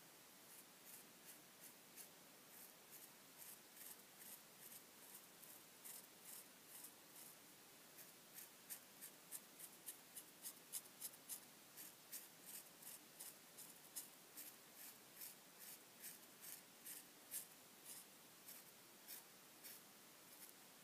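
Felt-tip marker colouring, its tip rubbing back and forth in short, faint strokes, about two a second, more frequent after the middle.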